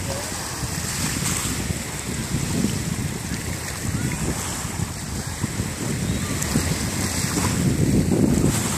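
Small sea waves washing over a rocky, pebbly shore, with wind buffeting the microphone; a little louder near the end.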